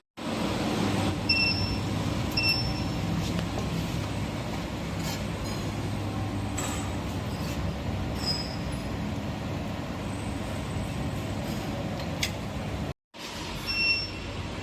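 Steady low machine hum in a workshop, with a few short high electronic beeps: two close together near the start and one near the end.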